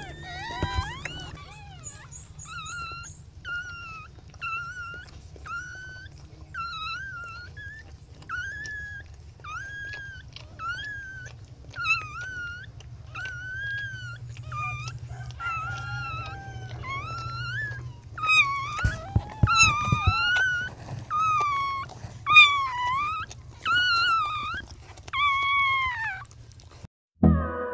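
Newborn puppies whimpering: a string of short, high, squeaky cries that bend up and down in pitch, roughly one a second, growing louder in the second half. A low steady hum runs underneath.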